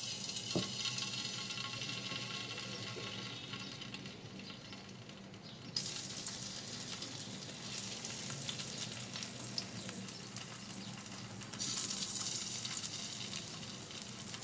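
Marinated potato slices sizzling in hot coconut oil in a frying pan. The sizzle flares up about six seconds in and again near the end as more slices are dropped in.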